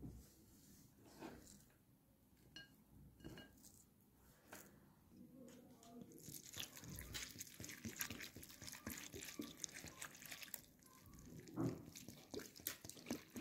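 Sliced raw onions being stirred and tossed with a spoon in a bowl wetted with a red liquid: a faint run of wet crunching and clicking that starts about six seconds in, after a few scattered light clicks.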